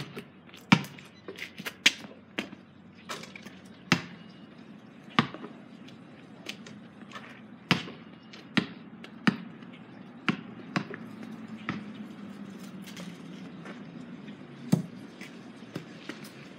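Basketball bouncing on a concrete driveway: a run of sharp single bounces at uneven spacing, fewer and fainter after about twelve seconds.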